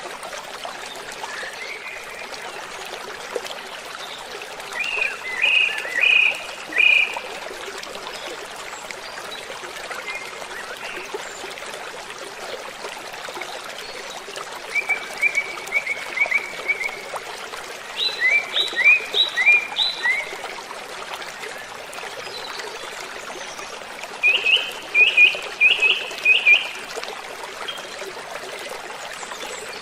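Steady rush of falling water from a waterfall, with a bird singing four short phrases of quick repeated chirps over it, one of them a fast trill.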